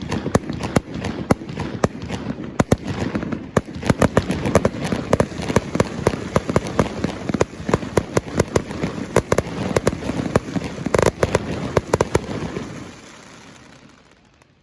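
Fireworks going off in quick succession, a dense run of sharp bangs and crackles over a rolling rumble, which thins out and fades in the last couple of seconds.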